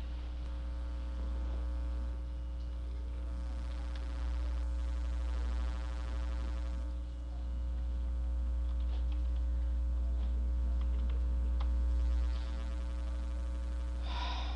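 Steady low electrical mains hum, with a few faint clicks partway through and a short burst of noise near the end.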